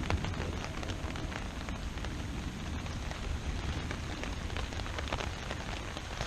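Steady rain falling, with many small drops ticking.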